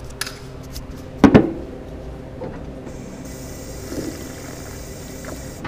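A stainless steel drinking fountain's water stream hissing from about three seconds in as someone drinks from it, over a steady low hum. A single loud knock comes about a second in.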